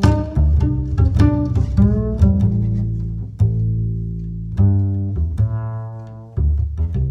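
Background music: an instrumental passage with deep sustained bass notes under shorter plucked notes.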